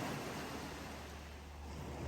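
Wind rushing over the microphone outdoors: a steady noise that eases a little through the middle and swells again near the end.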